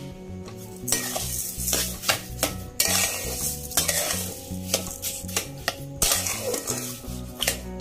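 A spatula stirring and scraping boiled tomatoes and sugar around a cooking pan, in repeated strokes of a second or two, with sharp knocks of the spatula against the pan.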